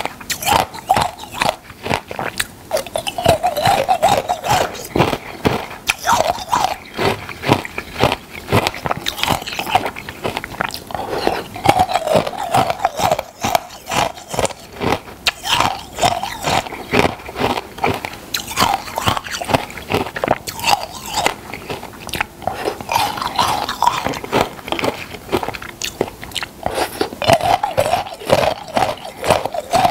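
A person biting and chewing icicles close to the microphone: continuous crisp crunching, with dense crackly bites one after another.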